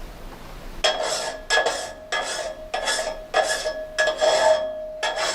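A hand file stroking the teeth of a sawmill saw blade during sharpening, about eight even strokes, with the steel blade ringing under each stroke.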